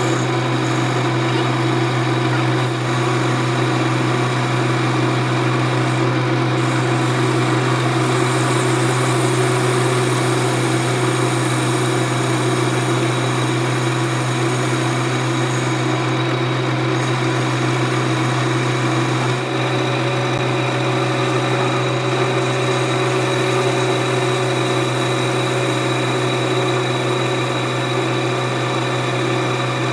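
Lathe running steadily, a constant low motor hum with steady higher tones over it.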